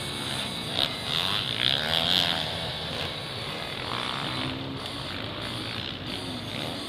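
A field of off-road motocross bikes running together at the start line, their engines idling and revving up and down while they wait for the start. Brief high-pitched sounds stand out about one and two seconds in.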